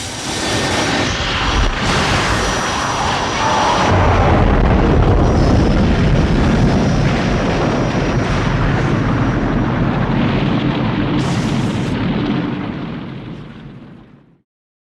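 Film sound effect of the mecha M.O.G.U.E.R.A.'s jet thrusters in flight: a loud, steady rumbling blast of thrust with a faint high whine in it, fading away over the last couple of seconds.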